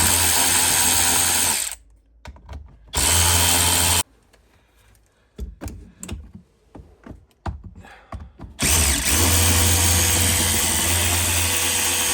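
Power drill running in three bursts: a short run at the start, a shorter one about three seconds in, and a long run of about four seconds near the end, likely backing out fasteners holding the center console. Small clicks and knocks come between the bursts.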